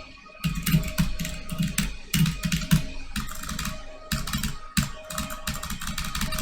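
Typing on a computer keyboard: quick runs of keystrokes at several clicks a second, starting about half a second in.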